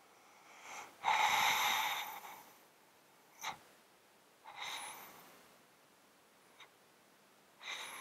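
A cat's congested, snotty breathing, heard close up: a loud wet exhale about a second in, a short sharp snort a couple of seconds later, and further snuffly breaths near the middle and at the end. The congestion comes from a long-standing illness that, according to the owner, makes him sound snotty and sneeze constantly.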